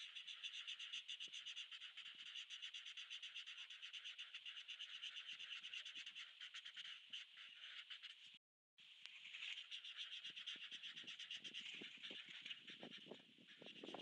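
Faint felt-tip marker scratching on paper in fast, even back-and-forth coloring strokes. The sound drops out for a moment about eight seconds in, and from about ten seconds in soft low taps join the strokes.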